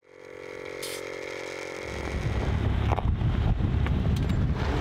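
A steady hum of several held tones, then from about two seconds in a Jeep Wrangler crawling over a rocky dirt trail. Its engine rumbles low and the tyres crunch on stones, with a few sharp knocks.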